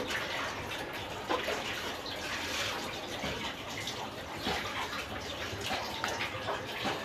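Water running and splashing, a steady uneven hiss with small splashes throughout.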